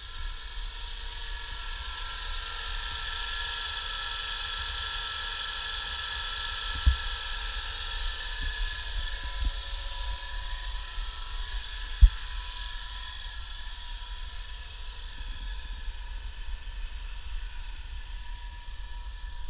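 A 2001 Nissan Altima's 2.4-litre four-cylinder engine idling with the hood open, a steady high whine over a low rumble. Two short sharp knocks break in, the louder one past the middle.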